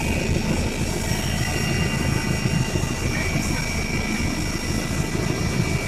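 Helicopter engine and rotor noise, a steady rumble with a constant high whine.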